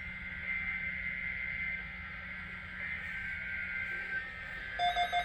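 Weather radio receiver with a faint steady hum and thin high tones, then rapid electronic beeping starts near the end.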